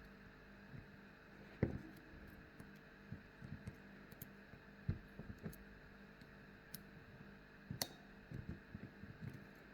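Tubular lock pick working the pins of a SAG five-pin stainless steel tubular padlock: faint, irregular small clicks and taps, with a sharper knock about one and a half seconds in and another click near eight seconds.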